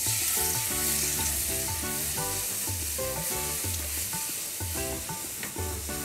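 Cold milk poured into a hot kadai of ghee-roasted besan and almonds, sizzling and hissing as it hits the pan. The sizzle starts suddenly and eases off a little as the milk goes in, over soft background music.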